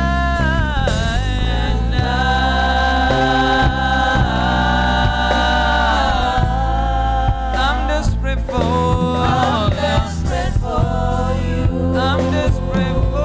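Church worship music: voices singing a slow gospel-style song over sustained instrumental chords and bass.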